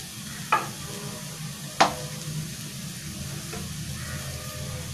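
A spatula clinks sharply twice against a steel plate, about a second and a half apart, then once more faintly, as cooked rice is pushed off the plate into a frying pan. Under the clinks the pan of vegetables sizzles steadily.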